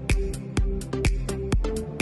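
Background electronic dance music with a steady beat, about two beats a second, over sustained synth notes.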